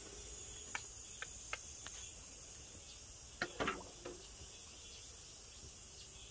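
Red-hot steel knife blade held in tongs being quenched in a barrel of water: a few light clicks, then a short burst of splashing and sizzling about three and a half seconds in as the blade goes under. Insects keep up a steady high buzz throughout.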